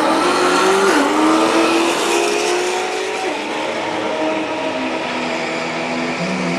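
Drag car's engine revving hard, its pitch climbing and dropping in steps, with the rear tyres spinning and squealing through a burnout at the start line.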